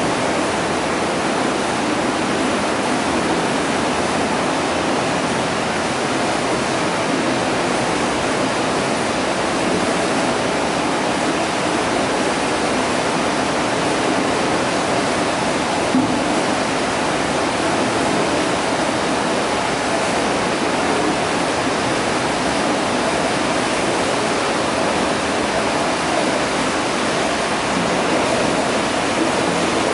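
Steady rushing of turbulent water in a water-treatment filter unit, a constant noise of falling, churning water with no let-up.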